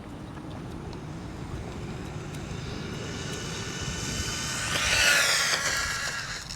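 Small RC car's electric motor whining as it accelerates, its pitch rising. It passes close by about five seconds in, where it is loudest, then the whine drops in pitch and fades as it goes away.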